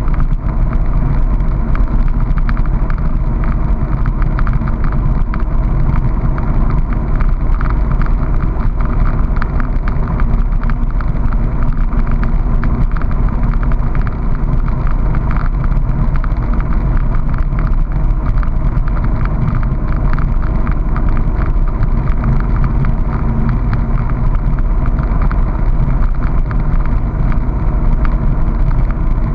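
Honda PC800 Pacific Coast motorcycle's V-twin engine running at a steady cruise, mixed with wind rushing over the microphone. The sound is loud and even throughout.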